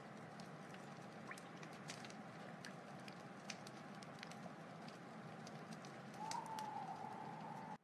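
Wood fire burning: a steady low rush with scattered sharp crackles and pops, and a thin whistling tone lasting about a second and a half near the end.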